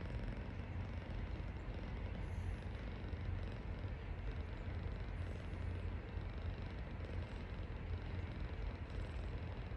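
Persian cat snoring: a low, steady rumble, with a faint hiss on the breaths every few seconds.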